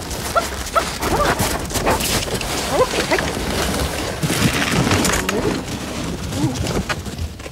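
A team of sled dogs in harness yelping and barking: many short yips whose pitch slides up and down, over a rustling noise.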